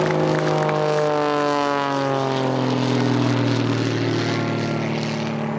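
A propeller aircraft flying past, its engine drone sliding steadily down in pitch as it goes by.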